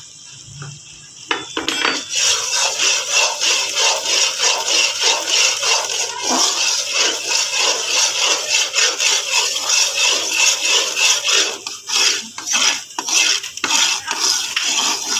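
Perforated metal spatula scraping and clattering round a metal pot in fast, rhythmic stirring strokes, about three a second, starting about a second in. It is stirring jaggery caramel that is foaming up just after baking powder has gone in.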